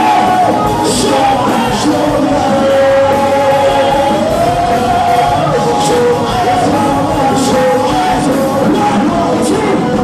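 Rock music with a singer holding long, drawn-out notes over a full band, with cymbal crashes every second or two.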